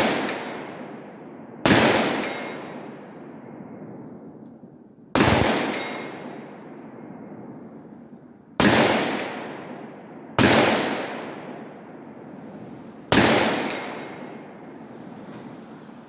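Five rifle shots from a .308 AR-10 fitted with a Sharps Bros Badlands muzzle brake and forward blast shield, fired at an uneven pace two to three and a half seconds apart. Each shot is followed by a long rolling echo that fades over about two seconds.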